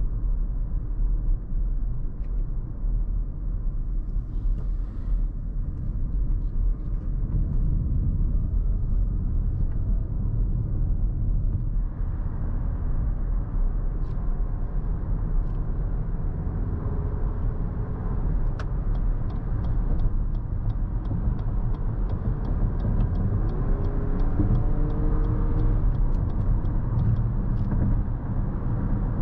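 Cabin sound of a 2022 Lexus NX 350 on the move, its 2.4-litre turbocharged four-cylinder and tyres making a steady low rumble that grows fuller and louder about twelve seconds in as the car gets onto the highway. In the second half a regular ticking of about three clicks a second runs for several seconds: the turn-signal indicator.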